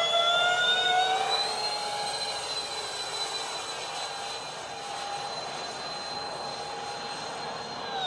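Twin electric ducted fans of a Freewing Su-35 model jet whining with several overtones, rising in pitch over the first second and a half as the throttle comes up, then holding a steady high pitch. Right at the end the pitch starts to fall sharply.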